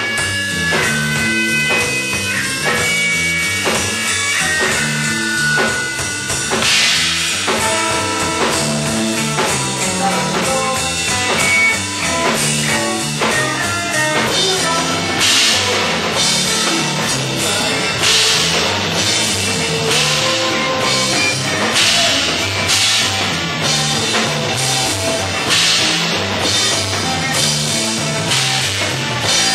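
Live funk-rock band playing: drum kit and electric guitar. Long held guitar notes ring out in the first few seconds, and repeated cymbal crashes come in from about halfway.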